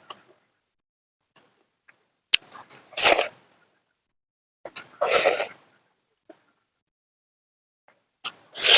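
Close-miked eating noises from a person's mouth: three loud, noisy slurps about two and a half seconds apart, each led by a short click of the lips.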